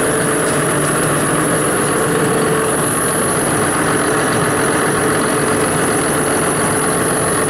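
John Deere 7930 tractor's six-cylinder diesel (6068) engine idling steadily.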